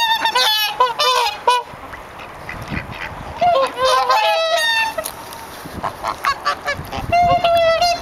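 Whooper swans calling: bursts of short, repeated honking calls, one cluster at the start, another around the middle and a third near the end.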